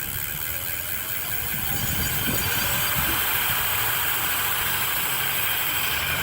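A 72-volt electric bike being ridden: a steady rush of wind and road noise over a low rumble, building over the first couple of seconds and then holding steady.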